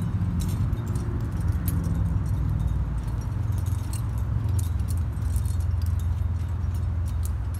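Metal climbing gear, carabiners and cams on a harness rack, clinking and jingling in irregular small clicks over a steady low rumble.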